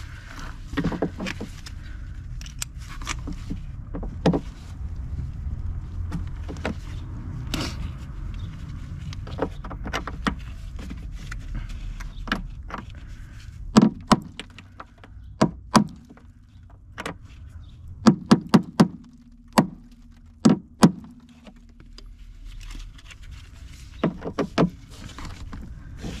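Hammer tapping a steel chisel-type tool set at an angle against a rusted screw head: a series of sharp metallic knocks at irregular intervals, loudest and quickest in a cluster a little past the middle. The oblique blows are meant to break the rust and loosen the stuck screw.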